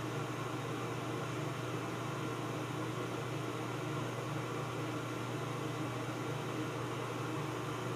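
Steady low hum with an even hiss over it: constant room background noise.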